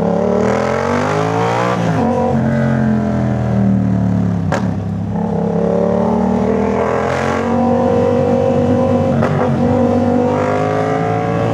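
Yamaha MT-07's parallel-twin engine through a full Jeskap aftermarket exhaust with freshly replaced fiberglass packing, pulling hard up through the gears. The pitch climbs, drops at upshifts about two and four and a half seconds in, climbs again, then holds fairly steady while cruising.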